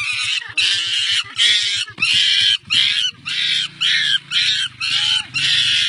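A bird squawking loudly over and over, a run of harsh, raspy calls about two a second.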